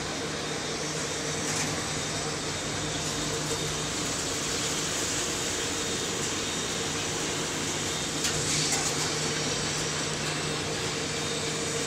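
Commercial popcorn production machinery running: a steady mechanical hum over an even wash of noise.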